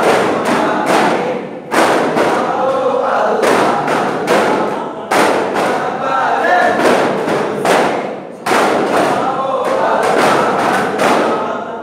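Daff frame drums beaten together in rhythm, the strokes landing in loud clusters every few seconds, with a group of men chanting in chorus over them.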